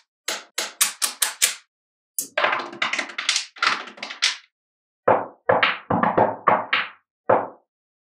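Small magnetic balls clicking sharply as clusters of them snap onto a block built of the same balls, with a denser rattling clatter in the middle as a row is pressed and slid into place along its edge.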